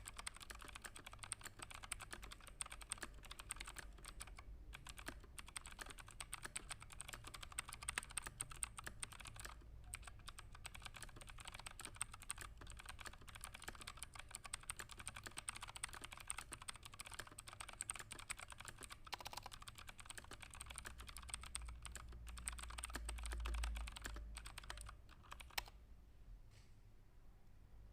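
Fast, continuous typing on a computer keyboard, a rapid stream of keystroke clicks with a couple of short pauses, slowing to a few last keys and stopping near the end.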